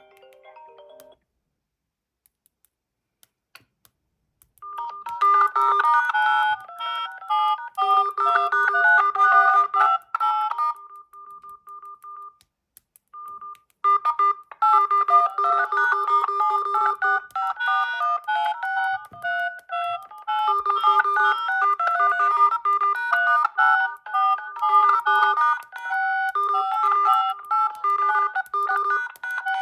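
Smartphone incoming-call ringtone: a synthesized melody of quick, bright notes that starts about five seconds in, breaks off briefly near the middle and then loops again.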